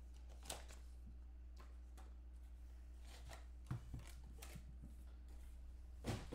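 Soft, scattered taps and knocks of a trading-card box being handled: the lid opened and the small inner card case lifted out and set down on the table, the loudest knock near the end.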